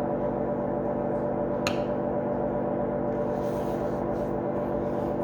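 A steady drone of many sustained tones at an even level, with a single sharp click about one and a half seconds in.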